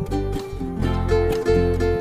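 Background music with plucked acoustic guitar playing a steady rhythmic pattern.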